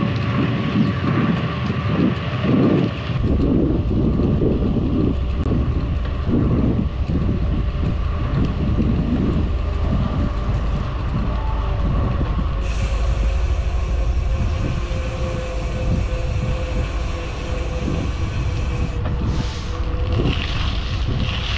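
Riding noise from a bicycle on the move: wind on the microphone and tyre noise, with a faint steady hum. A high hiss joins about halfway through and cuts off suddenly near the end.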